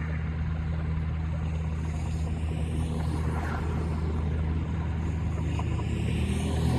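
UH-60 Black Hawk helicopter hovering just above the ground at takeoff: the main rotor and twin turboshaft engines make a steady low drone.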